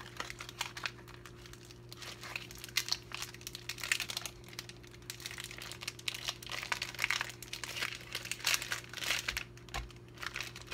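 Clear plastic packaging of a beef smoked sausage crinkling and tearing in irregular bursts as it is pulled open by hand and the sausage worked out. A faint steady hum runs underneath.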